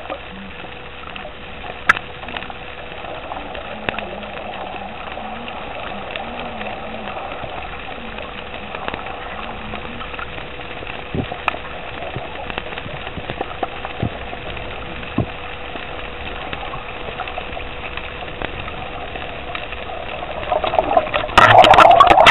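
Muffled underwater hiss heard through a submerged camera, with a few sharp clicks. Near the end, loud splashing as the camera breaks the water's surface.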